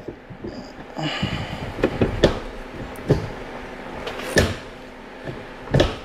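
Newly installed Cliq Tuning short shifter in a 1986 BMW E30 325es being worked through the gears, the lever clunking and clicking into each gate: about half a dozen short knocks spread over a few seconds.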